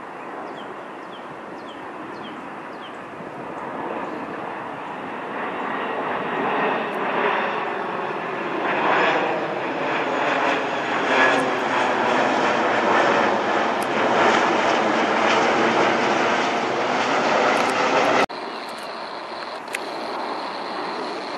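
A rear-engined twin-jet airliner on landing approach with its gear down passes low overhead: its engine noise grows steadily louder over several seconds to a loud, wavering rush. It cuts off suddenly near the end, giving way to a quieter, more distant jet airliner on approach.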